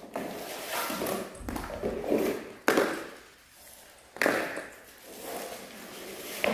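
Badminton racket strikes on a shuttlecock: about four sharp cracks over several seconds, each echoing briefly, as smashes are hit for speed measurement.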